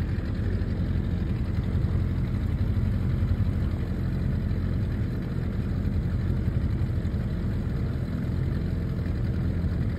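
Boat's outboard motor running steadily at low speed, a constant low hum.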